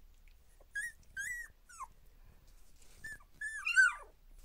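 Two-week-old border collie puppy whining in short high squeaks, about five in two bursts. The last one, near the end, is the longest and loudest and slides down in pitch.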